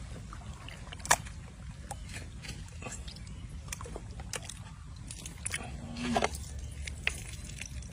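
Wet, sticky squelches and snapping clicks of raw calf stomach and intestines being pulled apart by hand. There is a sharp click about a second in and a burst of them around six seconds, over a low steady background rumble.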